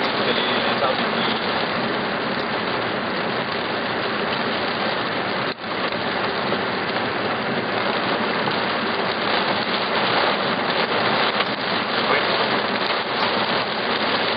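Heavy thunderstorm rain pelting down: a dense, steady hiss full of fine patters, with a brief drop-out about five and a half seconds in.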